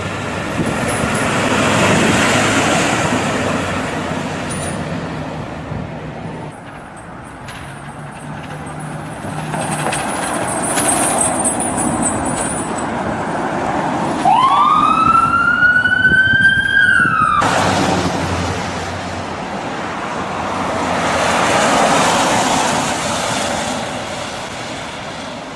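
Street traffic noise swelling and fading as vehicles pass. A little past halfway, an ambulance siren winds up in one rising wail that levels off and cuts off abruptly after about three seconds.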